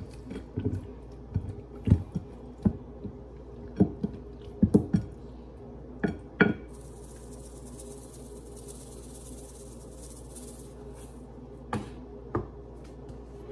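Spice shaker bottles and a ceramic plate being handled while raw chicken is seasoned: a run of sharp clicks and knocks over the first six or so seconds. Then a soft hiss lasting about four seconds, as seasoning is shaken out, and two more clicks near the end.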